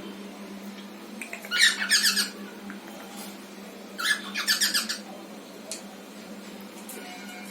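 Cockatiels calling in two short bursts of rapid, repeated calls, the first about a second and a half in and the second about four seconds in, over a steady low hum.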